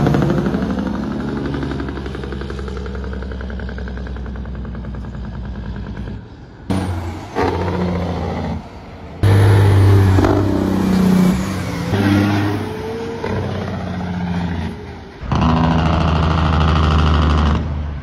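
Diesel semi-truck engines running loud as big rigs pull away and drive past one after another, the engine note rising and falling with each pass. The sound cuts abruptly from one truck to the next a few times.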